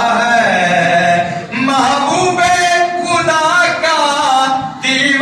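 A man singing an Urdu naat into a microphone in long, held, ornamented notes, with short breaths about a second and a half in and again near the end.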